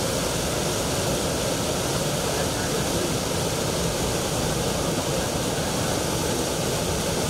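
Floodwater rushing through a river channel: a steady, even rush with no break or change.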